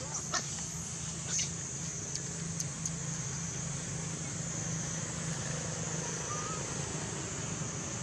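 Steady outdoor background of a low engine-like hum and a high hiss, with a few short clicks in the first second and a half and one brief faint squeak from a baby macaque about six seconds in.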